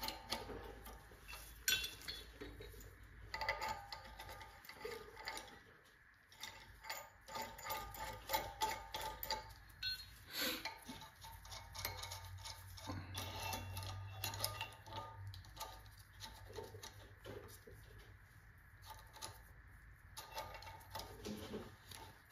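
Steel parts of a bearing separator puller kit clinking, tapping and rattling as the threaded extension rods are screwed in by hand and the puller's cross bar is fitted. The small metallic knocks come irregularly throughout.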